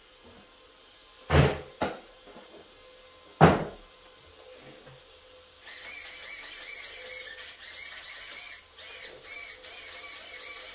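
Two sharp knocks, then the RC truck's steering servo whining in quick repeated sweeps for about five seconds near the end as the steering is worked back and forth; the servo does not sound strained.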